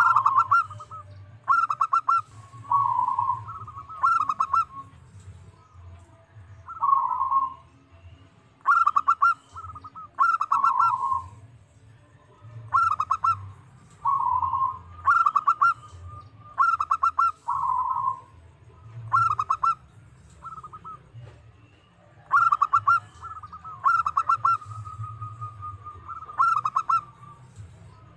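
Zebra dove (perkutut) singing its cooing song. Phrases of quick stuttering notes, each ending in a rolling coo, repeat about every two seconds, with one longer drawn-out coo near the end.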